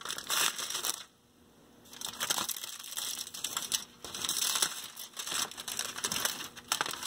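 Crumpled aluminium foil crinkling and crackling as it is pulled back by hand from a stack of bent spruce capstrips, with a brief pause about a second in.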